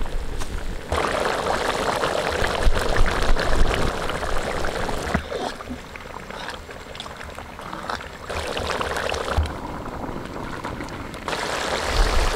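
Papaya curry gravy boiling hard in a kadai over a wood fire: a steady bubbling and spluttering that swells and eases in turn as the gravy cooks down to its finished thickness.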